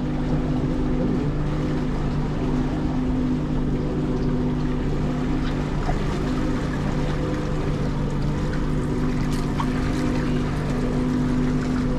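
Honda four-stroke outboard motor running steadily at trolling speed, a constant low engine hum.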